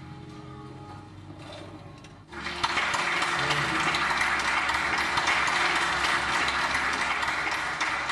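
Audience applauding, breaking out suddenly about two seconds in and going on steadily.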